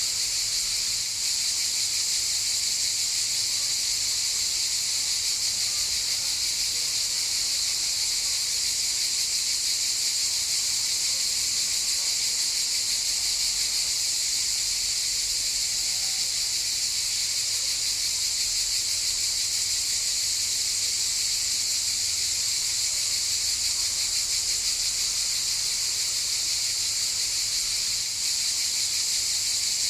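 A chorus of cicadas buzzing in a continuous, steady high-pitched drone.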